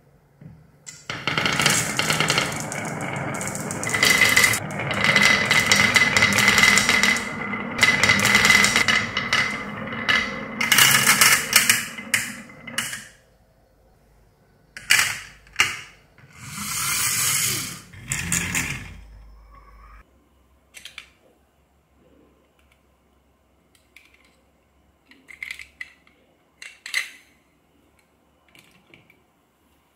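Marbles rolling and rattling down a wavy-grooved wooden track and clattering into a plastic toy dump truck's bed, a continuous rattle for about twelve seconds followed by a few shorter bursts of clatter. Near the end there are only a few light taps.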